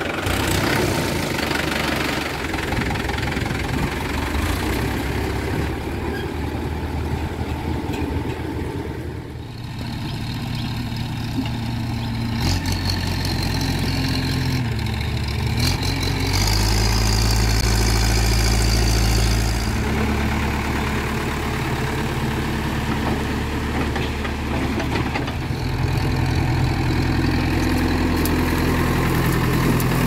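Mahindra Yuvo 415 DI tractor's diesel engine idling just after being started, then an L&T Case backhoe loader's diesel engine running as the machine drives, louder for a few seconds in the middle.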